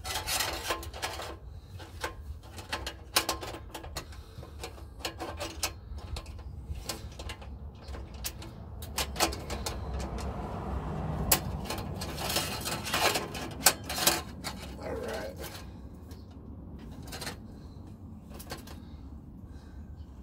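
Irregular clicks and knocks of hand tools on metal, bunched in short spells, over a low steady hum: the sound of exhaust clamps and pipe being bolted up.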